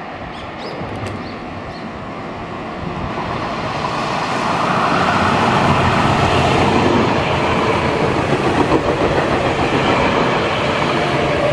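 Electric commuter train coming in and running past, its rumble building over the first few seconds and then holding loud and steady, with clacks of the wheels over rail joints.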